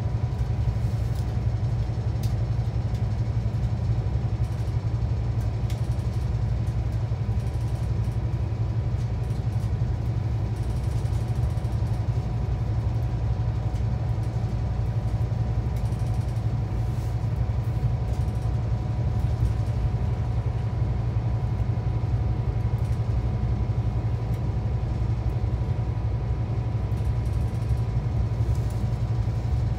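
Cabin noise inside a Scania K360EB4 / Irizar i6 coach on the move: a steady low rumble from the rear-mounted diesel engine and the road, with a faint steady high whine over it.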